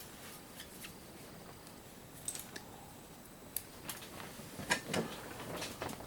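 Scattered small clicks and snips of hand tools working on a surge protector's plastic casing and wiring, with a few louder knocks near the five-second mark.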